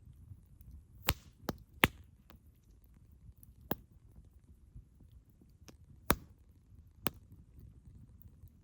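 Campfire crackling: sharp pops of burning firewood over a low, steady rumble of the flames. Three pops come close together about a second in, then three more spaced out after.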